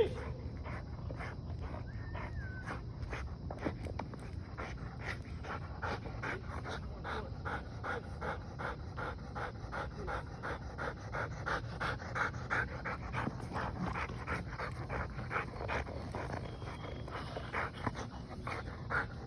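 A dog panting hard and fast, about three breaths a second, with one sharp knock at the very start.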